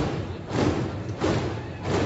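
A slow marching beat: heavy, evenly spaced thumps about every two-thirds of a second, keeping time for a ceremonial slow march.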